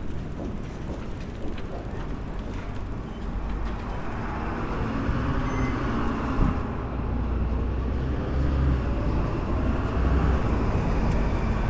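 Street traffic: motor vehicles passing on the road, a steady low rumble with tyre and engine noise that grows louder from about a third of the way in as a vehicle comes close.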